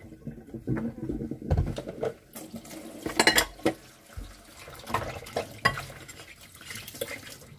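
Washing up by hand at a kitchen sink: a running tap splashing water, with repeated knocks and clatters of dishes.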